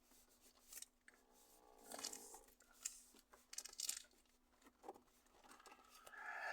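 Faint rustling, crinkling and peeling of a plastic adhesive sun-visor strip being handled against the windscreen, several short crackles about two to four seconds in.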